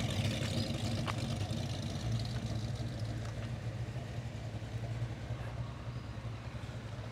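A car engine running slowly with a steady low note, growing gradually fainter.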